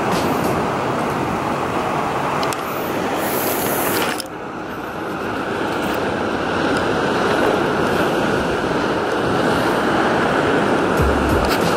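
Steady rushing noise of ocean surf, with a brief dip about four seconds in and a few sharp clicks near the start and end.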